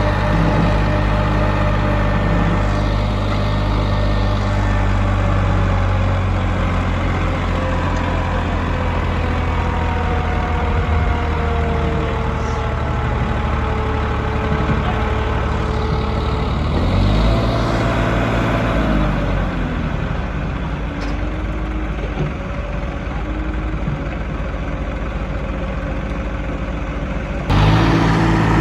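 Diesel engines of a backhoe loader and tractors running. About two-thirds of the way in, one engine revs up briefly and falls back. Near the end a louder, steadier engine note cuts in suddenly.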